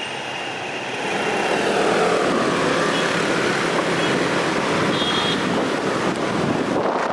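Strong typhoon wind blowing, growing louder about a second in, with road traffic noise mixed in.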